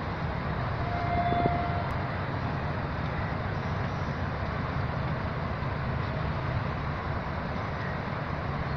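Pakistan Railways diesel locomotive engine running with a steady low rumble as it approaches slowly along the track. A brief steady tone sounds about a second in.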